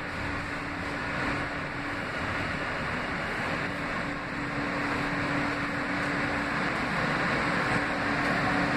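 Inside an R160A subway car running on elevated track: steady wheel-on-rail rumble and rushing noise with a steady hum underneath, growing slightly louder near the end.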